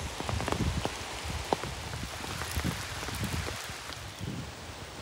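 Steady rain falling in woodland, with individual drops landing close by as irregular ticks.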